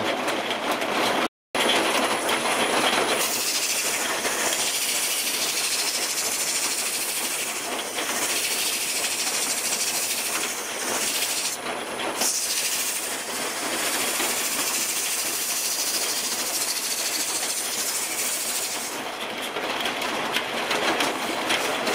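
80-grit sandpaper held against the inside of a wooden bowl turning on a wood lathe: a steady, rasping hiss of sanding, broken by a brief dropout about a second in. Near the end the hiss thins out as the lathe winds down.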